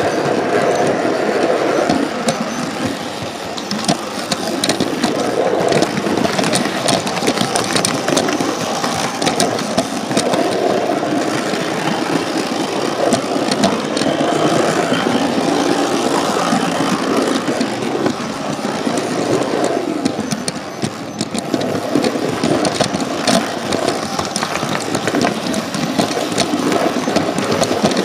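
Model train running along the layout, heard from on board: a steady motor whir with the wheels clicking over rail joints.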